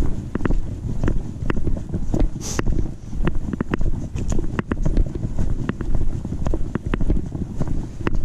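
Low rumble of wind and rubbing on a chest-mounted GoPro, with clicks and knocks as the camera jolts at each step of a hiker walking on a dirt trail, about two steps a second. A brief high hiss about two and a half seconds in.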